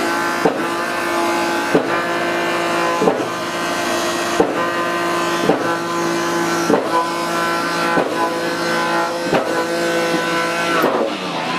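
A machine running with a steady hum, struck by a sharp knock about every second and a quarter.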